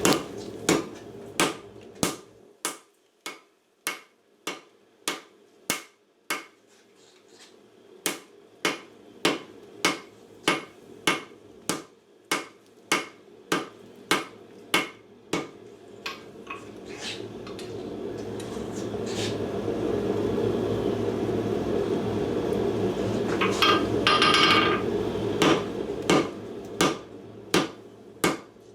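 Hand hammer blows on hot steel at the anvil, about one and a half strikes a second, in runs with short pauses. A steady rushing noise runs underneath and grows louder past the middle. A brief clatter of ringing metal comes near the end.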